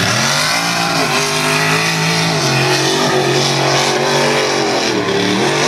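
Lifted mud truck's engine revving hard under full throttle, its pitch dropping and climbing again several times as the truck powers through mud and water.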